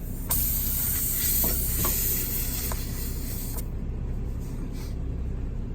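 Pressurised air hissing out of a tire's puncture hole for about three seconds, starting and stopping abruptly, over a steady low hum.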